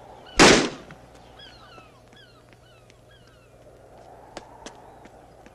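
A loud, sudden burst of noise about half a second in, then a run of short bird cries, each falling in pitch, with two sharp clicks near the end.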